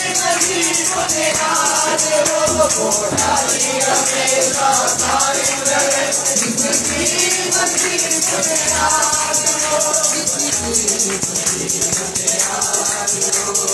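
Worship song sung by a woman's voice through a microphone and loudspeaker, with the congregation clapping along. A rattling percussion keeps a steady beat, with a low thump about once a second.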